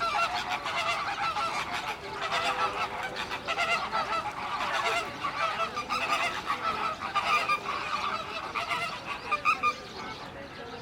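A flock of large birds honking over one another in many short, overlapping goose-like calls, thinning out near the end.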